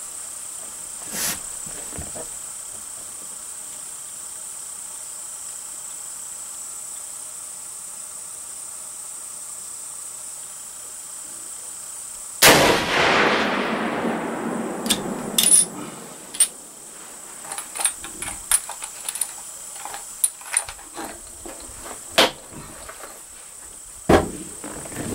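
A rifle fires once about halfway through: a sudden sharp shot with a long echoing tail that dies away over a few seconds, followed by a scatter of short clicks and knocks. Crickets keep up a steady high trill behind it.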